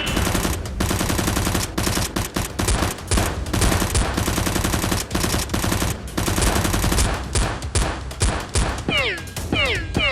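Rapid, sustained bursts of automatic gunfire, shot after shot with brief gaps. Near the end, repeated falling whistle-like tones join in.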